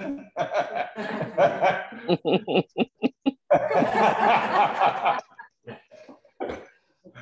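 People laughing: a run of short rapid chuckles, then a fuller burst of laughter about halfway through, dying away in scattered bits near the end.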